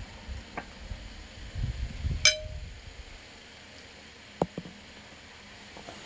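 Eating sounds: a spoon clinks once against the soup bowl with a short ring a little past two seconds in, amid low chewing and mouth noises, followed by two softer taps on the dishes past the four-second mark.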